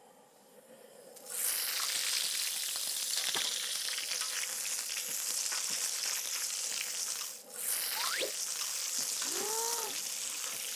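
Pork belly pieces sizzling hard in hot fat in a wide black pan while a wooden spatula stirs them: the first par-cooking of the pork belly. The sizzle starts suddenly about a second in and drops out briefly around the middle.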